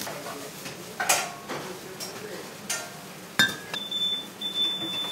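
Plates and cutlery clinking and knocking in a restaurant kitchen, a few separate sharp strikes with the loudest about three and a half seconds in. A steady high-pitched tone starts just after it and holds.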